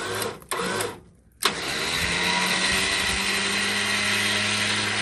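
Electric vehicle winch motor switching on suddenly about a second and a half in and running steadily under load, with an even low hum and whine.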